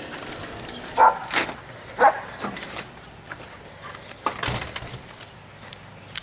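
Dog barking twice, about a second apart, at a balloon that scares it.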